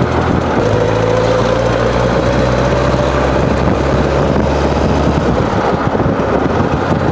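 1939 Indian 439's inline four-cylinder engine running steadily in top gear under way, a smooth purr.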